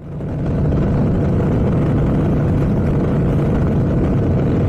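Motorcycle riding along a paved road: steady engine drone mixed with wind rush over the bike-mounted camera, fading in over the first half second.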